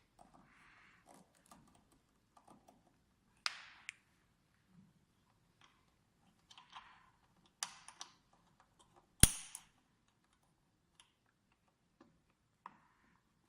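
Sporadic clicks, taps and knocks of equipment parts being handled and fitted together, with one loud, sharp snap about nine seconds in and faint rustling between.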